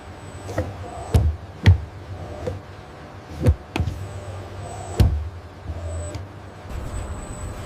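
Five sharp knocks at uneven intervals over a steady low hum.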